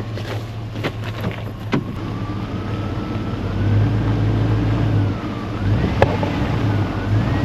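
A motor vehicle running as it moves slowly along, a steady low engine hum that grows louder about halfway through, with a few sharp knocks.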